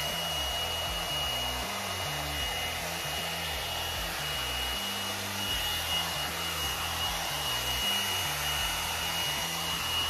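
A 1000-watt hot air brush (one-step hair dryer and volumizer) running steadily: an even rush of blown air with a thin, steady high whine from its fan. It sounds just like an ordinary hair dryer.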